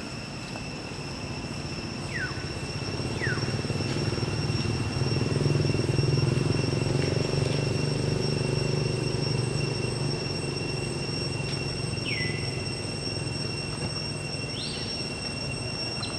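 A low rumble swells over the first several seconds and slowly fades, under a steady high-pitched insect drone. A few short chirps come through, two near the start and two more late on.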